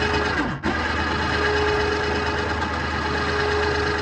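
Harbor Freight 2,000-pound electric winch running under power, its motor and gear train whirring steadily with a constant whine; it stops briefly about half a second in and then runs again.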